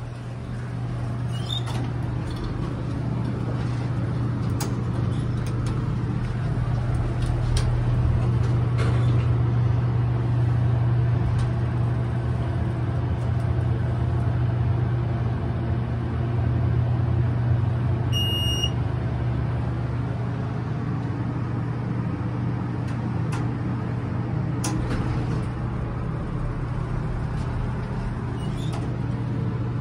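Hydraulic elevator car rising under its pump motor, a steady low hum that builds over the first few seconds as the car starts up. A single short electronic ding comes a little past halfway.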